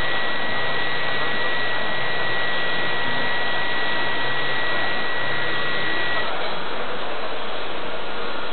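Electric motors and propellers of a radio-controlled advertising blimp, heard from right beside them: a steady whirring hiss with a thin high whine that stops about six seconds in.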